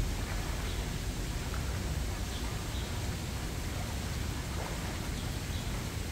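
Shallow river water running steadily over a rippling riffle, as a continuous hiss with a low rumble underneath.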